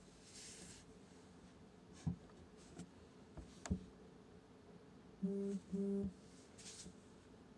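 A wooden spatula stirring diced chicken and vegetables in a pot, with faint scraping and two sharp knocks against the pot. Near the end come two short, steady low buzzes, the loudest sound.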